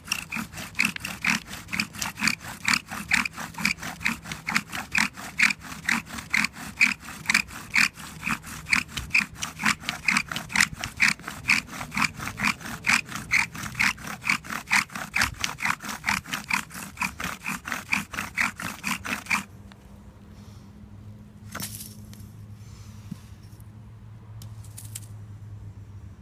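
Bow drill with a ceramic spindle turning in a wooden fireboard: a fast, even squeaking scrape with each pass of the bow. It stops about 19 seconds in, followed by a few faint handling clicks. The drilling makes smoke, but the wood dust does not get hot enough to catch.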